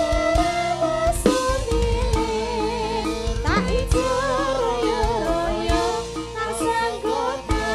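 Live campursari music through a PA system: women's voices sing a wavering, ornamented melody together over an amplified band with drums.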